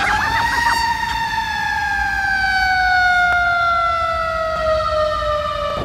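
Fire engine siren: one long wail that climbs briefly, then falls slowly in pitch and cuts off suddenly near the end.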